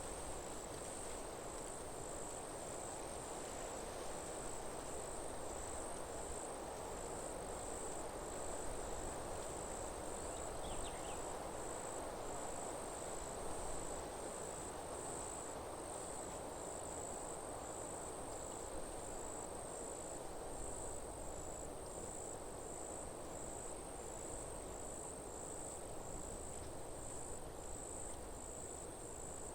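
Insects chirping in a high, steady, evenly pulsing trill over a soft, constant rushing background.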